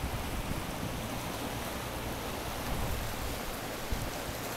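Steady rushing noise of wind and choppy water from on board a boat, with a low rumble underneath.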